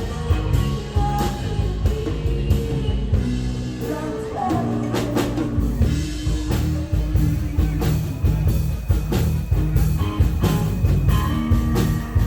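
Background rock music with vocals, drums and guitar and a steady beat.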